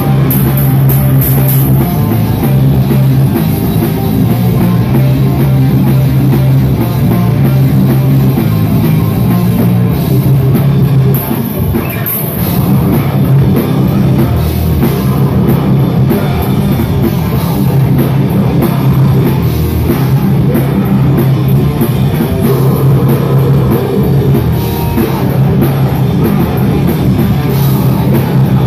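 Live heavy metal band playing loud: distorted electric guitars over a drum kit, with a short dip in level about eleven seconds in.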